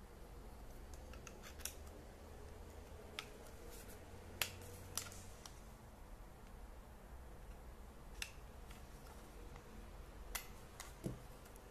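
Handling noise from a night vision monocular and its USB charging cable: scattered sharp plastic clicks and taps, a second or two apart, with a duller knock near the end.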